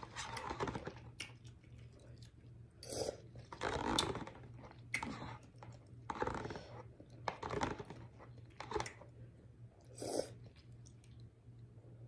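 Close-up eating sounds: chewing and slurping the last of a bowl of instant noodles, with a fork picking in the instant-noodle bowl, in irregular short bursts. Near the end the bowl is tipped up to drink the broth.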